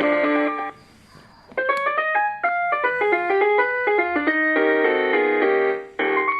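Polyphonic ringtones of a ZTE T-U110 mobile phone. One tune stops under a second in, and after a short pause a quick electronic melody of short notes plays. It breaks off near the end and a third tune begins.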